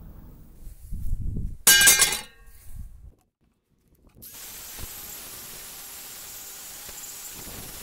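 A rusty circular saw blade being handled: a few dull knocks, then a loud metallic clang with a brief ringing about two seconds in. After a moment of silence, a steady faint hiss.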